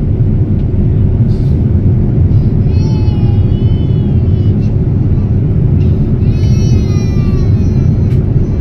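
Steady, loud low rumble of a vehicle in motion. A high voice-like sound rises over it briefly twice.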